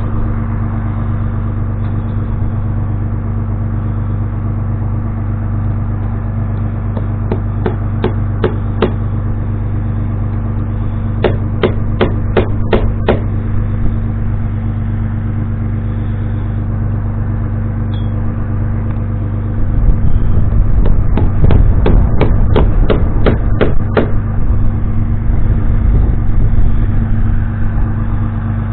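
An engine running steadily throughout, growing louder about two-thirds of the way in, with three runs of quick hammer blows, five to eight sharp strikes in each run.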